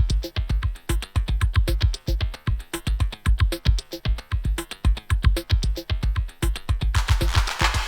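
Electronic background music with a steady drum-machine beat and a deep kick drum; a swelling cymbal-like wash comes in near the end.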